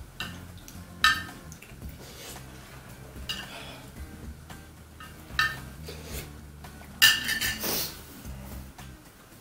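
Eating utensils clinking and scraping against a soup bowl: three sharp, ringing clinks about one second, five and a half seconds and seven seconds in, the last the loudest, with lighter taps between.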